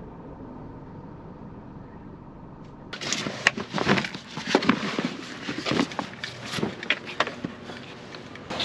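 Footsteps crunching on a forest trail, an irregular run of sharp crunches and clicks two or three a second, starting suddenly about three seconds in after a faint steady hum.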